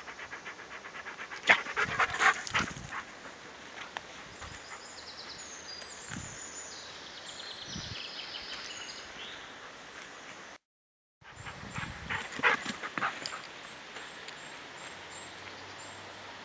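A bouvier dog panting quickly close to the microphone at the start. Then come two short clusters of louder sharp knocks, about a second and a half in and again about twelve seconds in, and the sound cuts out briefly shortly before the second cluster.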